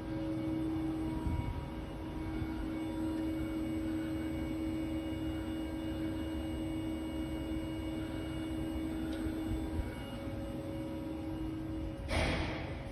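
A steady droning hum: one held tone with fainter overtones above a low rumble, the recurring nightly humming noise of unknown origin. A short rush of noise cuts across it near the end.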